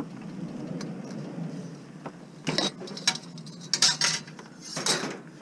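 Metal scrap being loaded into the back of a van, with several sharp clanks as the pieces knock against other metal in the second half.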